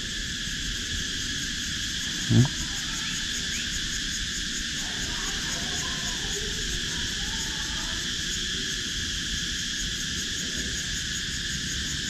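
Steady high chirring of insects, an even outdoor chorus. A brief low thump comes about two and a half seconds in.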